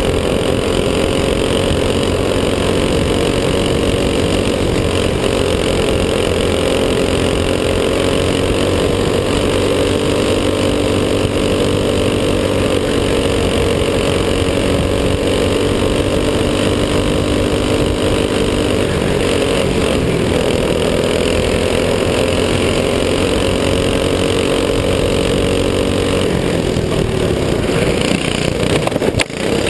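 Racing kart engines running at high, fairly steady revs, heard from a camera mounted on the kart so its own engine is loudest, with other karts close by. The engine note shifts in the last few seconds and dips briefly near the end.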